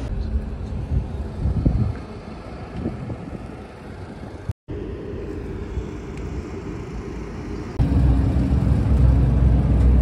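Outdoor pit-area noise with some low thumps, then about eight seconds in a loud, steady low rumble of NASCAR stock car engines on pit road starts.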